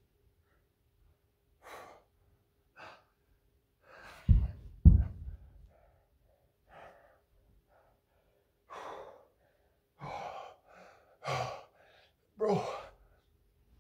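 A man's heavy breathing under the strain of a long plank hold: short sighs, gasps and puffs of breath, with two loud, low grunts about four and five seconds in.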